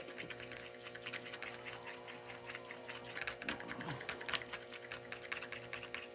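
Paint being stirred in a white plastic palette well: a quick, uneven run of small clicks and scrapes as the stirrer knocks against the plastic, over a faint steady hum.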